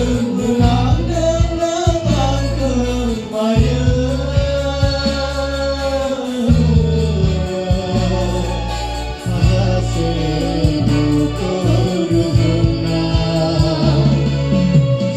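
A group of men and women singing a Bodo gospel song together, accompanied by an electronic keyboard with a steady bass line and a programmed drum beat.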